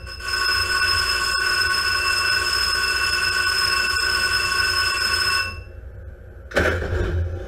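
Shipboard torpedo launcher during a launch sequence: a loud, steady, high-pitched whistling hiss for about five seconds that cuts off suddenly. About a second later comes a sudden heavy thump with a low rumble.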